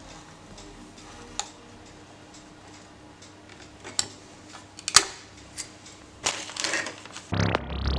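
A few scattered sharp clicks and knocks over a faint steady hum, the loudest about five seconds in, followed by a brief scraping rustle. Electronic synth music starts near the end.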